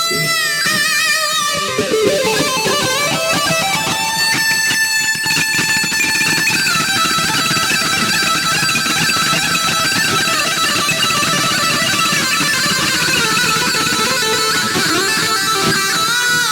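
Solo electric guitar playing held notes that waver with vibrato, sliding and bending to new pitches now and then.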